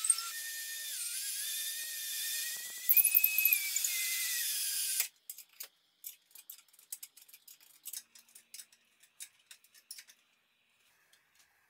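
Power drill-driver whining as it drives a long screw through the wooden base into the rod, its pitch shifting as the load changes; it stops abruptly about five seconds in. After that come light metallic clicks and taps as a wrench and hex key are fitted to the screw head.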